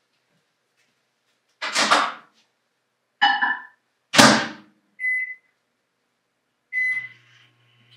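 A microwave oven being loaded and started. The door clunks open, a stoneware bowl clinks inside, and the door shuts with a loud thunk. The keypad beeps twice, and near the end the microwave starts running with a steady low hum.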